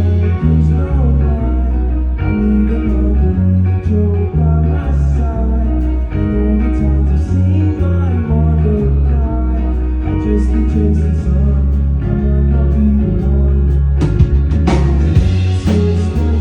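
Live band music: guitar and a singing voice over a low line that steps from note to note, with cymbals swelling about 14 seconds in.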